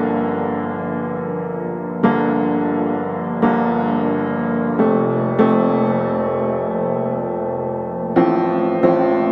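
Slow background keyboard music: sustained chords struck every second or two and left to ring.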